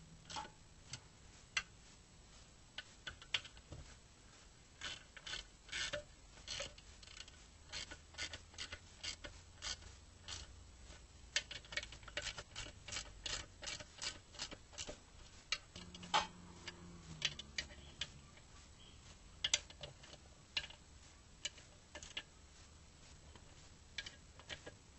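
Ratchet wrench clicking in short, irregular runs, with scattered clinks of metal hand tools.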